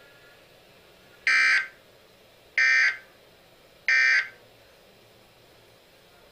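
Three short, buzzy electronic beeps from an emergency alert broadcast, each about a third of a second long and about 1.3 s apart, marking the break between alert bulletins.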